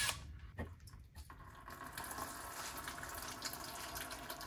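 Automatic transmission fluid pouring off the back edge of a loosened 68RFE transmission pan into a drain pan. It runs as a steady splashing stream from about a second and a half in, after a few light clicks.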